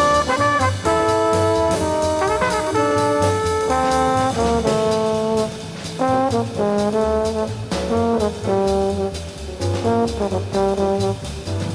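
Jazz trombone solo in quick runs of short notes, accompanied by walking double bass and drums with ride cymbal.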